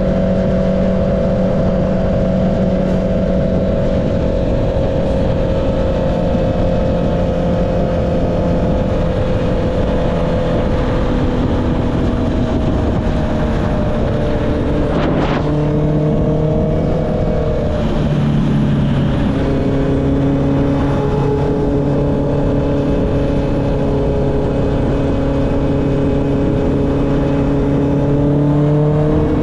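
Honda CB650R's inline-four engine through an Akrapovic exhaust, cruising on the road with the note easing slowly down, over a steady rush of wind. About halfway through the note breaks briefly and drops to a lower pitch as the bike changes gear, then holds steady.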